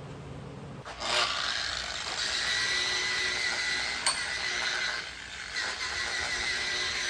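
Angle grinder starting up about a second in and running steadily on steel bar, a steady hiss with a high whine.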